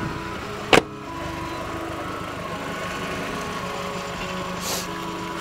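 Volkswagen Mk4 Golf GTI engine idling steadily, with one sharp knock about a second in.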